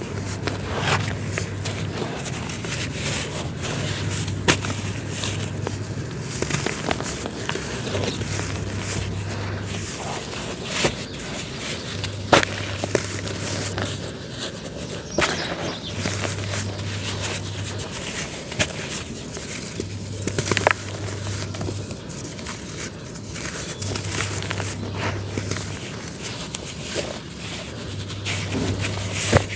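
Dry, crumbly earthy material being crushed and crumbled by hand: a continuous gritty crackling crunch with frequent sharp snaps as pieces break.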